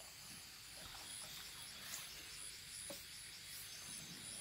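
Faint insects calling, a steady, evenly pulsing high trill, with two soft knocks in the middle.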